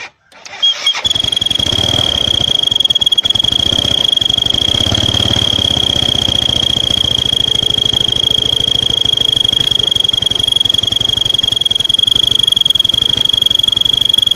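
A child's toy trumpet on a motorcycle's crankcase-breather hose, blown by the idling engine's breather pulses: a steady high-pitched whistle over the engine's rapid idle pulsing. It starts about a second in and holds without change.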